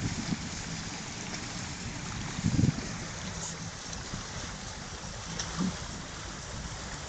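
Wind over choppy lagoon water with small waves lapping, and low wind rumble on the microphone; a brief low bump about two and a half seconds in.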